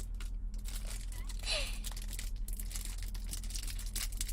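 Plastic film wrapper of a Japanese fish sausage (gyoniku sausage) crinkling and rustling in the hands as someone tries to tear it open, the wrapper not giving way.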